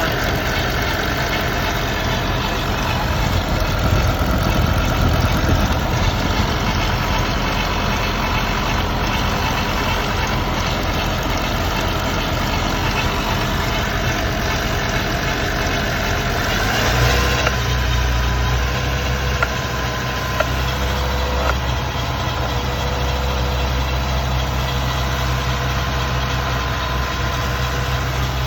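BMW S85 V10 engine running during a VANOS test, with a steady whine over the engine note. About two-thirds of the way through the engine's drone changes to a steadier, deeper hum and the whine settles into a steady higher tone.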